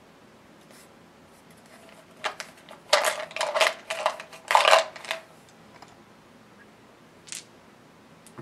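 Zombie Dice dice rattling and clattering in the game's cardboard cup as new dice are drawn from it: a dense run of clicks lasting about three seconds, then a single click near the end.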